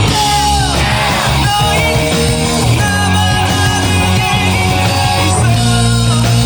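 Rock band playing live at full volume, with electric guitar to the fore over bass and drums.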